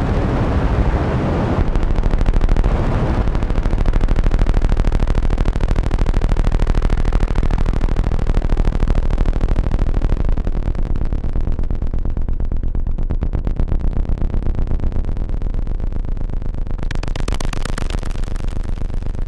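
Arturia MiniBrute analogue synthesizer playing a dense, rumbling low drone with fast pulsing, through a Line 6 M5 delay pedal. The tone grows darker about halfway through as the highs drop away, and a brief bright hiss comes in near the end.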